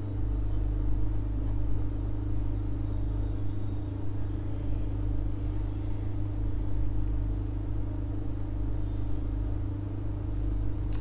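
Steady low mechanical hum that holds a constant pitch and level.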